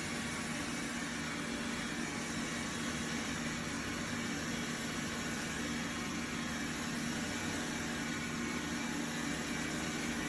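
Dreame L10s Ultra robot vacuum running, a steady whir of its suction fan and motors with a low hum under an even hiss.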